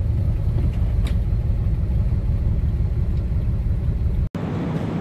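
Ford F-250 pickup's engine running with a steady low rumble, heard from inside the cab as the truck rolls slowly. It cuts off abruptly about four seconds in, giving way to a quieter, thinner background hum.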